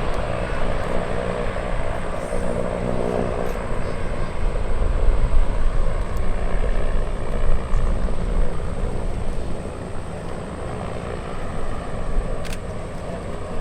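Propeller engines of the Goodyear semi-rigid airship Wingfoot Three droning steadily while it manoeuvres; the engine note is clearest in the first few seconds, over a continuous low rumble.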